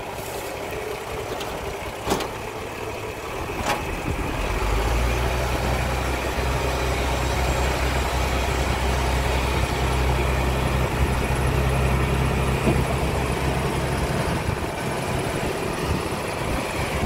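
Hino Ranger dump truck's diesel engine running, raised to a steady higher speed about four and a half seconds in to drive the hydraulic hoist that tips the loaded bed, then easing back near the end. Two short clicks sound early on top of the engine.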